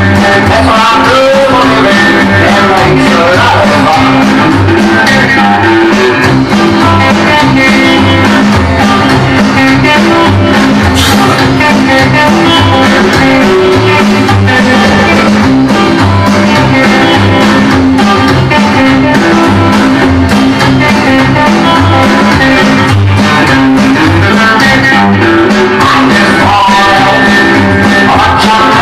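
Rock-and-roll record playing: guitar over a bass line that steps from note to note, with a steady beat.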